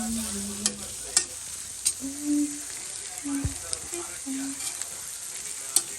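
Buffalo lung pieces frying in oil with spices in a pan, sizzling steadily. There are a few sharp clicks of the stirring utensil against the pan.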